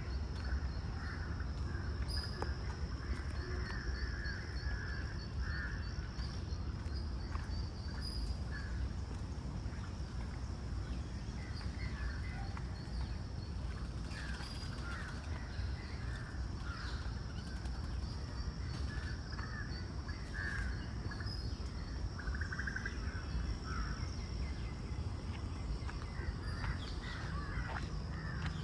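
Outdoor park ambience: birds calling on and off, crows cawing among them, over a steady low rumble and a thin, steady high-pitched drone.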